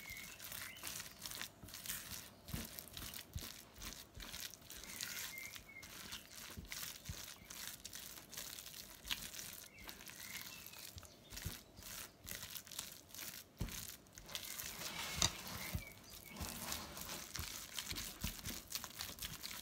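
Wet papier-mâché pulp of newspaper, sawdust, wall filler and PVA glue being stirred and pressed in a bowl with a spatula and plastic-gloved hands: faint, irregular rustling and scraping strokes.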